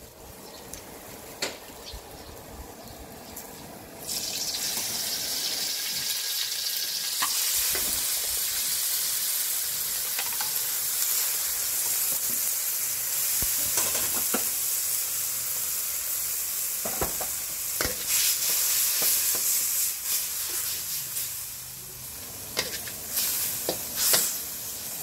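Pad thai noodles, bean sprouts and meat sizzling in a hot wok, stirred with a metal ladle that clicks and scrapes against the pan. The sizzling starts suddenly about four seconds in and eases slightly near the end, where the ladle's clanks come more often.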